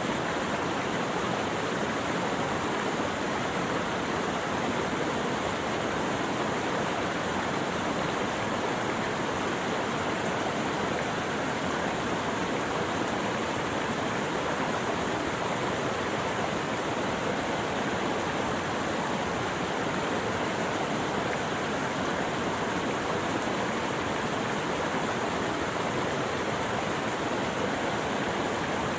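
Running water rushing steadily without a break, an even hiss with no birdsong or other events.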